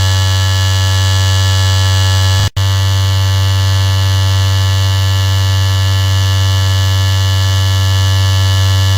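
Electric shaver running with a steady, loud, low buzz. It drops out for a split second about two and a half seconds in, then carries on unchanged.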